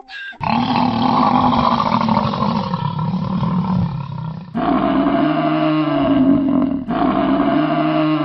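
A lion roaring: one long, rough roar, then an abrupt change about halfway to a series of shorter, pitched roars that rise and fall.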